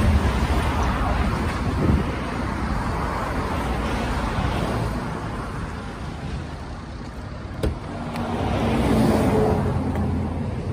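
Road traffic passing by: one vehicle's engine and tyre noise fading just after the start, and another swelling past near the end. A single sharp click comes a little after halfway.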